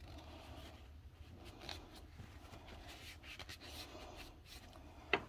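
Faint rubbing and scuffing of a paper towel wiping food off dishes, a few soft strokes over a low steady hum.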